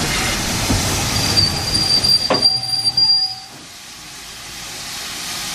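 Steam train coming to a stop: a high, steady brake squeal sets in about a second in, a single clank comes just before the end of the squeal, and the rumble of the running train cuts off about halfway through. A quieter steam hiss follows and slowly grows louder.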